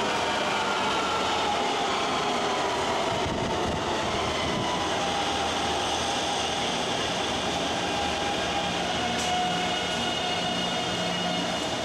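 Taipei MRT metro train pulling into an underground station and slowing to a stop, its motor whine falling in pitch as it brakes, over a steady rumble of wheels on the rails.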